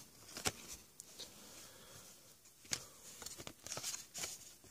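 Football trading cards handled and flipped through by hand: quiet, scattered card rustles and light slaps, with a sharper click about half a second in and a quick run of them near the end.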